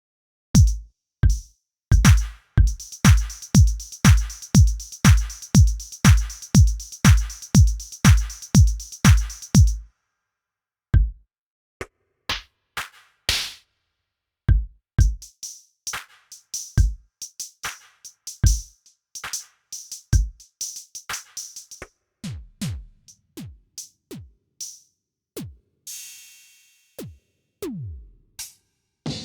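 Korg Triton Extreme VST drum and percussion samples played one after another. First comes an even pattern of deep drum hits with a bright, hissy top, about two a second, which stops about ten seconds in. Then come spaced single drum and percussion hits, several of them deep hits that drop in pitch, with a noisy cymbal-like splash near the end.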